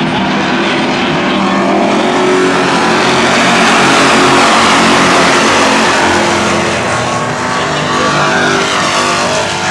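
A pack of stock race cars at racing speed, many engines running hard together. The sound builds to its loudest about four seconds in as the pack passes closest, then eases slightly.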